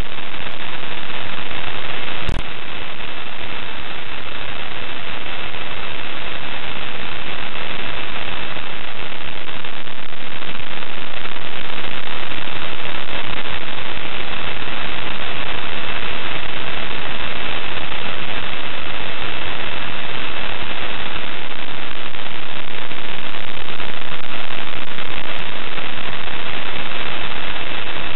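Loud, steady radio static hiss on the ISS live stream's audio feed, with a faint steady high whistle running through it and a single click about two seconds in.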